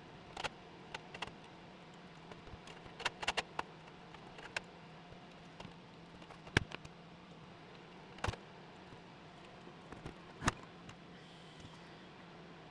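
Scattered light clicks and taps at an uneven pace, a few sharper ones among them, over a faint steady hum.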